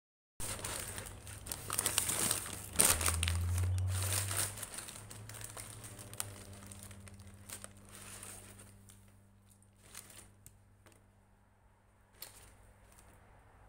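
Paper sandwich wrapper crinkling and rustling as it is pulled open around a Subway sub, loudest in the first five seconds and then fading, with a few short crackles of paper near the end.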